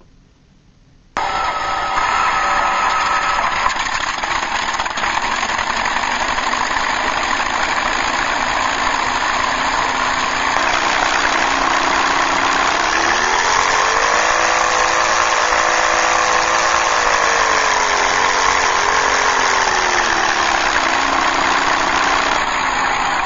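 Synthesized airplane engine sound from an MrRCSound V4 RC sound unit: the engine comes in suddenly about a second in and runs at a steady idle. About halfway through it rises in pitch to higher throttle, holds there, then falls back to idle near the end.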